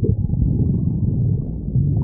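A person's stomach growling: a continuous low rumble with quick fluttering changes in loudness.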